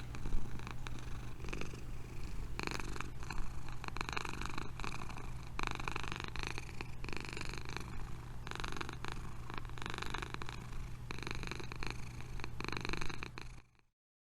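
Domestic cat purring close to the microphone, a continuous low rumbling purr that cuts off abruptly shortly before the end.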